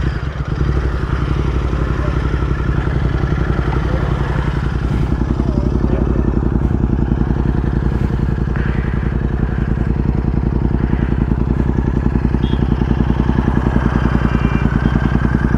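Royal Enfield Continental GT 650 parallel-twin engine running steadily with an even, rapid exhaust pulse, while the bike is smoking more than it should.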